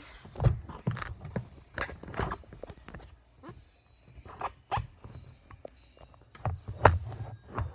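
Handling noise: irregular knocks, taps and rubbing as the camera is moved about against a cardboard box and plastic containers. The loudest knock comes near the end.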